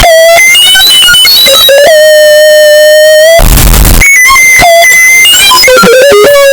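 Loud, harsh electronic tones: quick beeps jumping in pitch, a held tone, a short blast of hiss a little past the middle, then more jumping beeps into another held tone.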